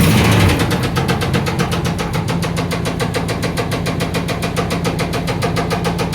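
1994 Chevy Silverado engine running with a loud, fast, regular knock, about eight or nine knocks a second: rod knock, which the owner suspects is a piston hitting the cylinder head. It is briefly louder just after starting, then settles.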